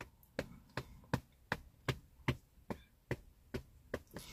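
A pickup truck's turn-signal or hazard flasher ticking inside the cab: light, even clicks, about two and a half a second.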